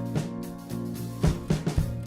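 Background music: a band track with guitar, bass and drum kit keeping a steady beat.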